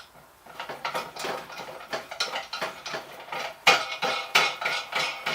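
Irregular metallic clinks and knocks of steel tools against a manual tyre changer and a motorcycle wheel as the tyre is worked on. The knocks come faster and louder about two-thirds of the way through.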